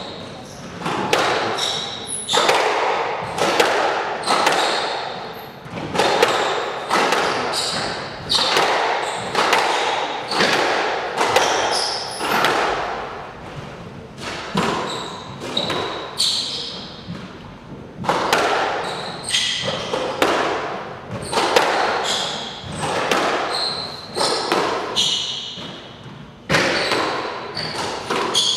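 A long squash rally: the ball cracked by rackets and thudding off the walls about once or twice a second, each hit echoing through the hall, with short high squeaks of players' shoes on the court floor.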